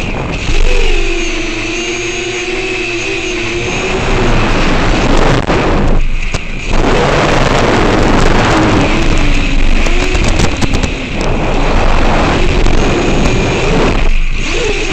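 FPV quadcopter's brushless motors and propellers whining, the pitch rising and falling with the throttle, with heavy wind rush over the onboard microphone during the fast middle stretch. The motor sound thins out briefly twice, near the middle and near the end.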